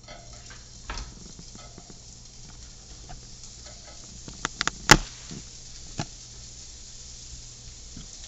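Sausages sizzling in a hot frying pan, with a few sharp knocks, the loudest about five seconds in.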